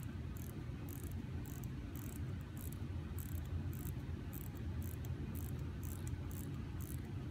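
Hand-winding the crown of a Hamilton Khaki mechanical watch. The winding ratchet gives fine clicking in short, even bursts, about two to three a second, one burst for each twist of the fingers as the mainspring is wound.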